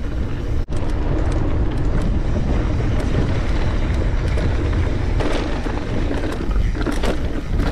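Specialized Stumpjumper Evo mountain bike descending a dirt singletrack at speed: steady wind buffeting on the camera's microphone and tyre rumble, with the rattle and knocks of chain and frame over bumps. The knocks get busier near the end as the bike rolls over rocks.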